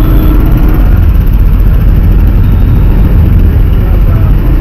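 Steady road and wind noise while riding a motorcycle: heavy low buffeting on the microphone over the running engine.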